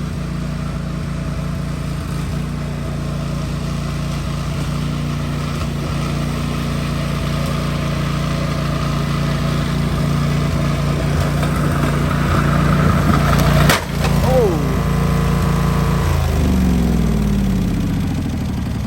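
Riding lawn tractor's engine running steadily, then a single sharp crash about fourteen seconds in as the tractor hits something. A short falling tone follows, and the engine's revs slide down near the end.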